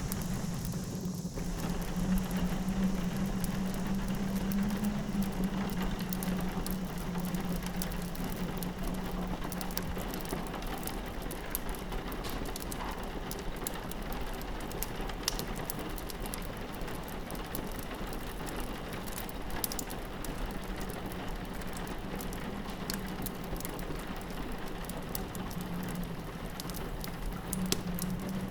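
Fireplace crackling with many sharp, irregular pops over the steady patter of rain on a window. Under them runs a low steady drone that fades out in the middle and returns near the end.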